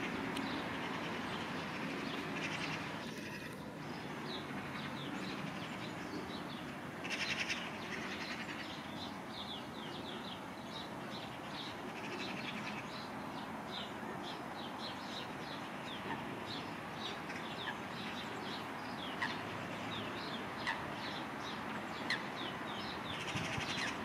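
Small birds chirping: many short, high, falling chirps in quick series through most of the stretch, over a steady background noise.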